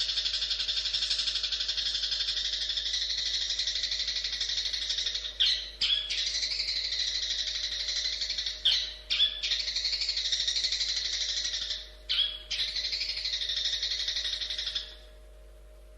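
Long-tailed shrike (cendet) singing a fast, continuous chattering song in long phrases. The song breaks off briefly about five, nine and twelve seconds in and stops near the end.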